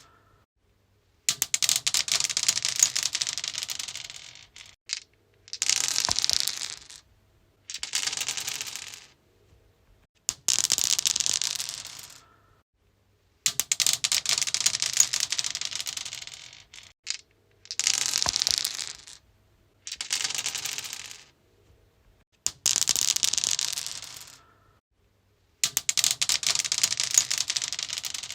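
Dice rolling and clattering on a stone surface, thrown again and again: about nine rolls, each one to three seconds of rapid clicking that fades out, with brief silences between.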